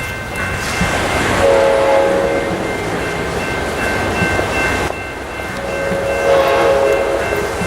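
EMD F59PHI diesel locomotive's air horn sounding twice, a blast of about a second and then a longer one of nearly two seconds, over the rumble of the moving train.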